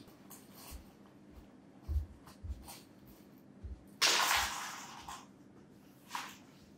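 A Shih Tzu's snort: a sudden hissing burst about four seconds in that fades over about a second, with a shorter one near the end and a few faint low thumps.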